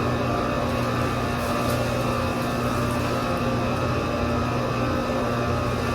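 Steady mechanical hum of running machinery, a constant low drone with a few fixed tones and no change in level.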